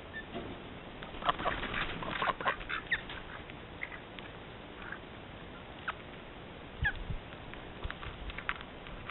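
Birds calling: a flurry of short, harsh calls between about one and three seconds in, then scattered brief chirps.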